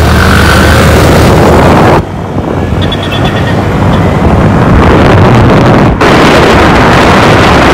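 Loud, steady rush of noise, broken by abrupt cuts about two and six seconds in.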